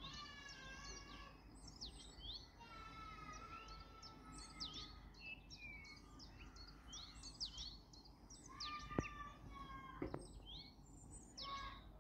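Faint outdoor birdsong: many small birds chirping in quick downward-sweeping notes, with a few longer drawn-out calls, over a low steady background rumble. Two sharp clicks come about nine and ten seconds in.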